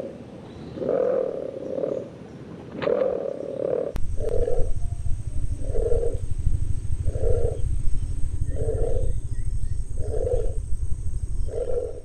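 Bare-throated tiger-heron calling: a series of low calls, uneven at first, then a steady run of six about a second and a half apart. From about four seconds in, a low background rumble runs under the calls.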